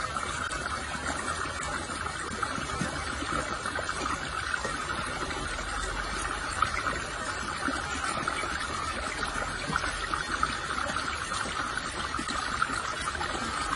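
Water of a shallow stream running and trickling steadily, an even hiss that holds without a break.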